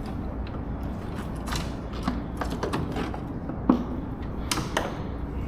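Fishing reel mechanism clicking and creaking as line is worked, with a handful of irregular sharp knocks, the loudest about two-thirds of the way in, over a steady low rumble.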